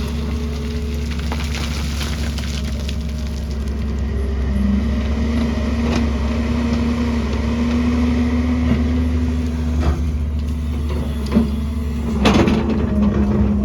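Excavator's diesel engine running steadily at work, with a few knocks from the machine as it digs, the loudest clatter about twelve seconds in.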